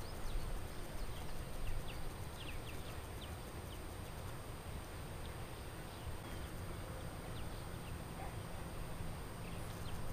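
Baitcasting reel being cranked by hand close to the microphone, giving a low rumbling handling noise over a steady low hum. Faint short high chirps come through in the first few seconds.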